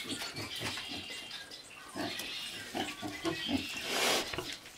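Pigs grunting: a run of short, low grunts, then a louder, harsher burst near the end.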